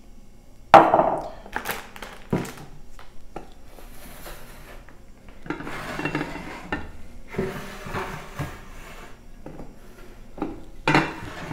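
Aluminium cooking pots and lids clanking and scraping as they are handled and slid about on a table, with a metal spoon knocking against them. There is a loud ringing clank about a second in and another near the end.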